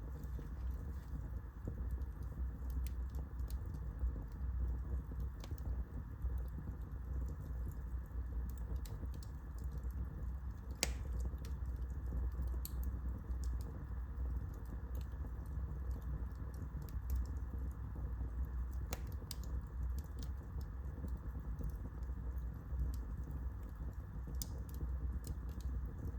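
Wood fire burning in a fireplace: a steady low rumble of flames with scattered sharp crackles and pops, the loudest pop about eleven seconds in.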